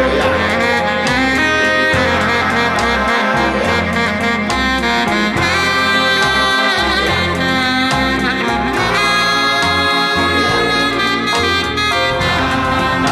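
Background music in a jazz style, with a saxophone-like horn carrying the tune over a moving bass line.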